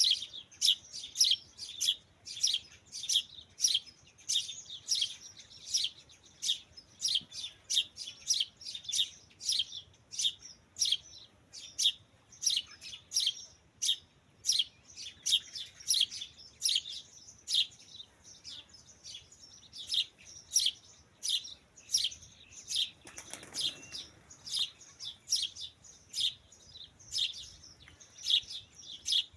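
Small birds chirping over and over, short high chirps about twice a second. A brief rustling noise comes in about three quarters of the way through.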